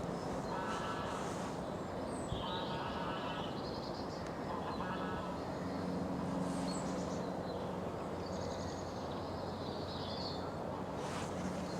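Wild birds calling over a steady background hiss: a string of short high chirps and twitters, with lower, harsher pulsed calls among them. A low steady drone joins about five seconds in.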